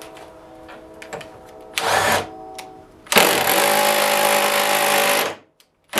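Bosch GDX 18V cordless impact driver running in a short burst, then for about two seconds, driving in the vise's mounting bolts. The owner finds it not great for this job and would rather use an air impact.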